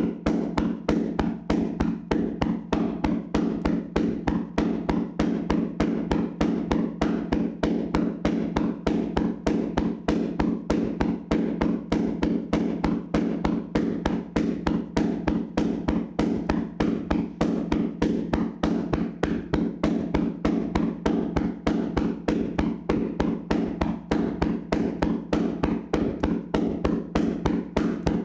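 Hands slapping and tapping on a person's body in a vigorous massage: sharp, even strikes a few times a second, with a steady low hum underneath.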